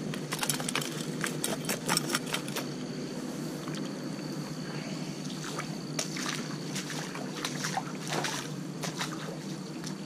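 Shallow creek water trickling steadily over gravel, with scattered sharp crunches and clicks from handling gear and footsteps on the wet gravel bank.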